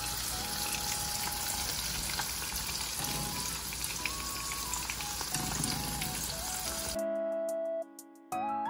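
Small flour-breaded fish frying in a pan of oil on medium heat, a steady sizzle, with soft background music over it. About seven seconds in the sizzle cuts out and only the music is left.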